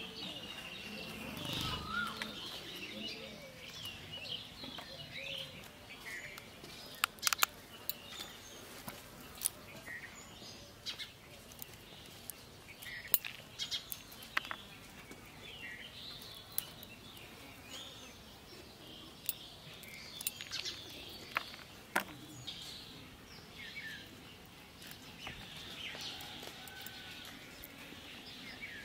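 Small birds chirping and twittering on and off throughout, with scattered sharp clicks and snaps from hands cleaning banana flower florets; the clicks are the loudest sounds.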